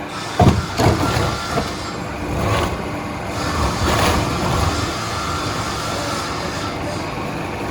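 Veneer mill machinery running steadily, with a couple of sharp knocks in the first second.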